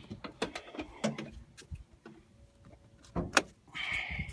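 Mitsubishi Eclipse convertible's door being opened: a few light clicks of handling, a sharp latch clack about three seconds in, then a brief rustle as the door swings open.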